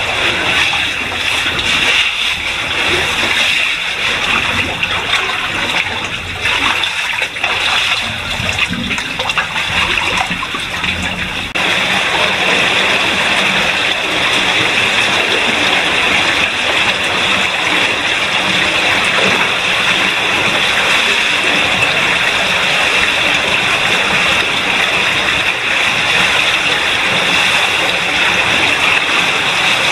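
Water splashing and sloshing around a caver wading through a flooded cave passage. About a third of the way in it switches abruptly to a steady rush of running water.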